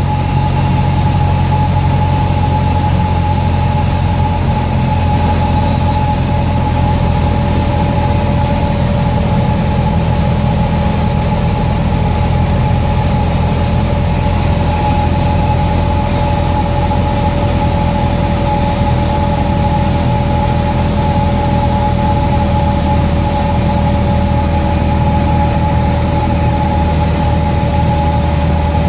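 1958 Cessna 172's six-cylinder Continental O-300 engine and propeller droning steadily inside the cockpit, with a steady high whine and rushing air over it.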